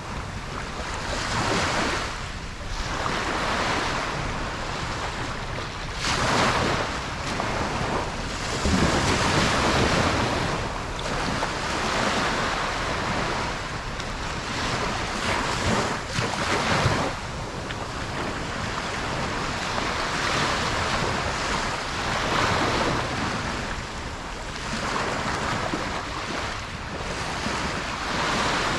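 Ocean waves breaking on a beach, a continuous wash of surf that swells and falls every few seconds, with wind buffeting the microphone.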